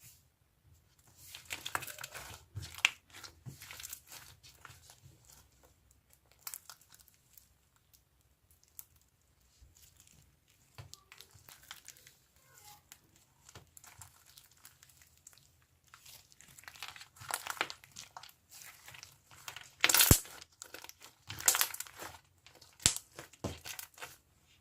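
Hands squeezing, stretching and pressing a slightly firm pink slime, making irregular crackling clicks and air-bubble pops. The busiest, loudest stretch of popping comes in the last third, with one sharp crack about twenty seconds in.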